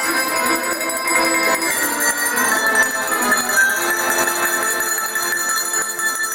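A set of tuned cowbells playing a tune together with an accordion, the bell notes ringing on and overlapping over the accordion's held chords.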